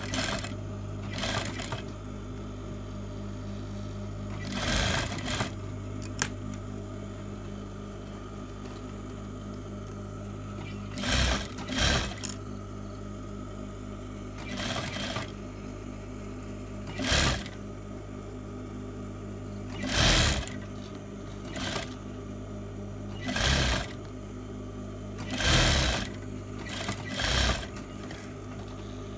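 Sewing machine stitching in about a dozen short runs, each a second or less, stopping and starting as a waistband seam is sewn, over a steady low hum.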